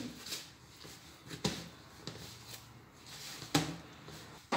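Pizza dough being worked by hand and a metal spoon in a plastic bowl: soft mixing and scraping noise broken by a few sharp knocks against the bowl.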